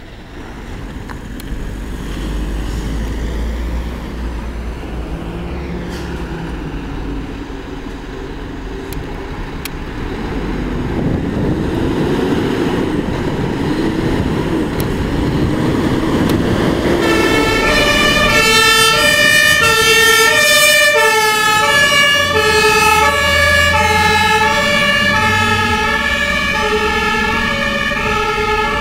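Fire engines pulling out under alarm: diesel engines running, then a siren wailing up and down about halfway through. From a little past halfway the German two-tone horn (Martinshorn) sounds loud, alternating its high and low notes, and it is the loudest part.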